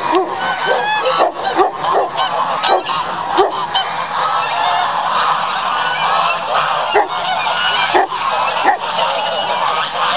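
Large flock of white domestic geese honking, with many calls overlapping continuously.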